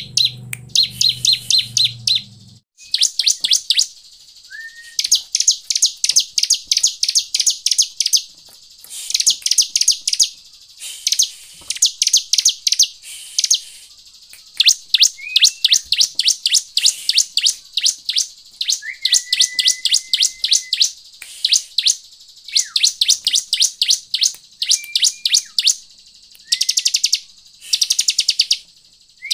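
Bar-winged prinia (ciblek) singing: fast runs of sharp ticking notes, each run lasting about a second, repeated over and over with short gaps, and a few short thin whistles between them.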